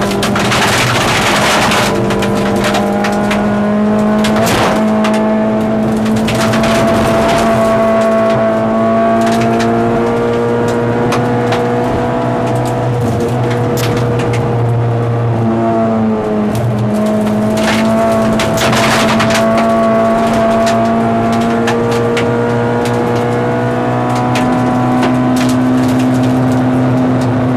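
Lada 2108 rally car's four-cylinder engine running hard, heard from inside the cabin. The engine note drops briefly at gear changes a few times. Twice, near the start and about two-thirds of the way in, a loud spray of gravel and tyre noise rises over the engine.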